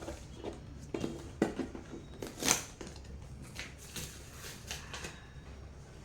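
Scattered light clicks and knocks of hands handling small plastic objects, taking batteries out of one device and fitting them into a cube timer.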